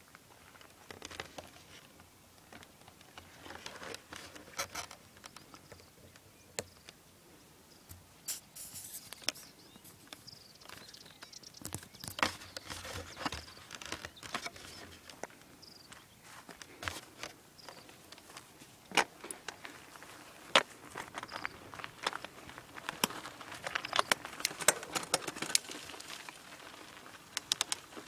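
Footsteps on grassy, stony ground: irregular light crunches and clicks, busier in the last few seconds.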